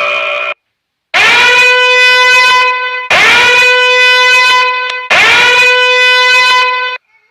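A meme horn sound effect: three loud, long blasts of the same steady note, each one scooping up into the pitch at its start and holding for about two seconds. Just before them, the tail of a different steady tone cuts off, followed by a short silence.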